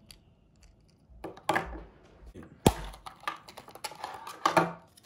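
Clear plastic toy packaging being handled and opened: irregular clicks and crinkles of rigid plastic, with one sharp click about two and a half seconds in.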